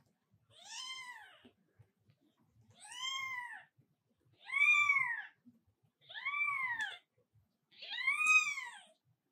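Newborn kitten mewing: five high, thin calls, each about a second long, rising and then falling in pitch, spaced about one and a half seconds apart, the third and last the loudest.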